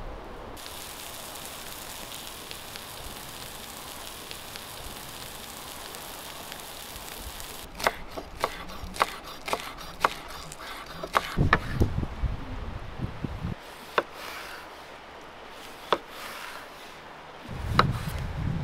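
A steady hiss of lamb ribs cooking over a wood fire gives way, about eight seconds in, to a chef's knife chopping green onions on a wooden cutting board: a run of sharp knocks about two a second. A few slower knocks follow as onions are sliced, with two spells of low rumble.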